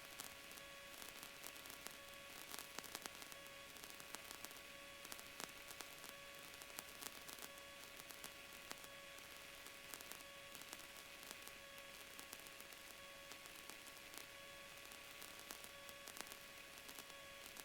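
Near silence: faint static hiss with a steady, faint hum tone and light scattered crackle.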